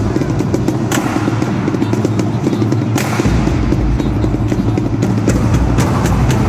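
Marching drum line playing a loud cadence: dense snare rattle over bass drums, with sharp accented hits about one and three seconds in, after which the deep bass drums come back in.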